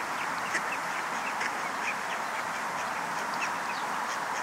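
Mallard ducks quacking softly in a run of short calls over a steady outdoor hiss.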